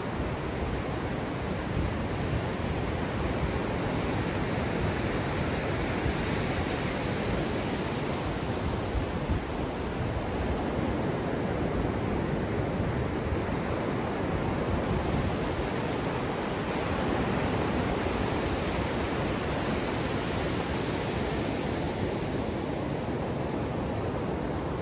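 Ocean surf washing up the beach right at the microphone: small breaking waves and foam sliding over wet sand in a steady rushing hiss that swells a few seconds in and again near the end.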